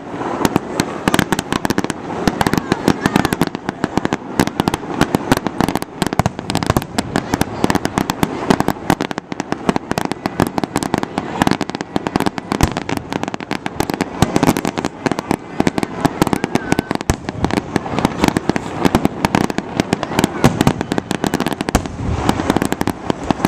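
Aerial fireworks display: a continuous barrage of shell bursts and crackling bangs, several a second without a break.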